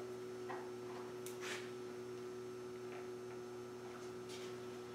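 Steady electrical hum with a few faint clicks and rustles scattered through it.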